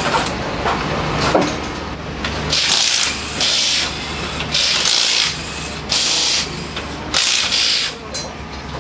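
Cordless impact wrench on a rally car's wheel nuts, run in about five short half-second bursts, mostly in pairs, over a steady low hum.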